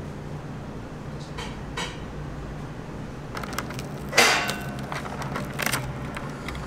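Crisp baked waffle cone being torn apart by hand, with a few small crunches and one loud crackle about four seconds in, over a steady low hum.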